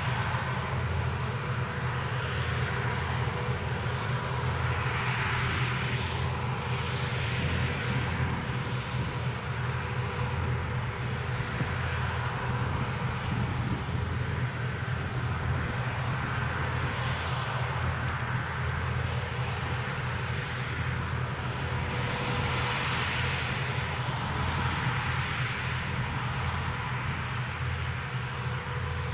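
Palesse GS12 combine harvester running steadily as it harvests, a low diesel drone with steady machinery tones and a continuous high-pitched whine above it.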